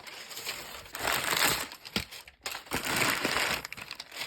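Packing material and kit boxes crinkling and rustling as a shipping carton of plastic model kits is unpacked by hand, in two main bursts with a knock between them.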